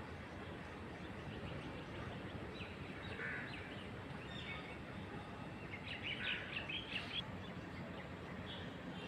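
Small bird chirping in short, quick clusters, loudest in a flurry about two-thirds of the way through, over a steady low background rumble.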